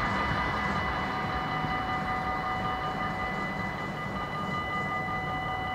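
Dutch level-crossing warning bell ringing continuously, with a low rumble underneath.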